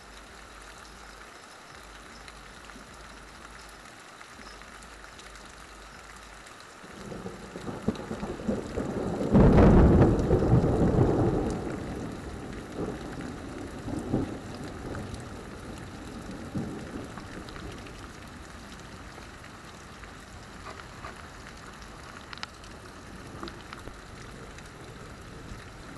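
Heavy rain pouring steadily. About seven seconds in, thunder from a lightning flash rumbles in, is loudest around ten seconds, and rolls away over several seconds.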